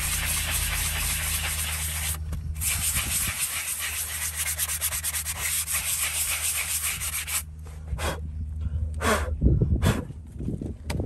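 A hand sanding block scrubbed in rapid back-and-forth strokes over a horse's hoof wall, just above the fitted shoe, smoothing the hoof. The rubbing is steady, breaks off briefly about two seconds in, and stops about seven and a half seconds in, followed by a few short scrapes.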